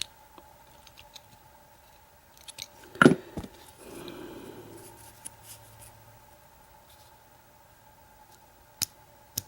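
Small metallic clicks and clinks of padlock parts and a plug follower being handled while the cylinder is pushed out, with one sharp clack about three seconds in and another click near the end.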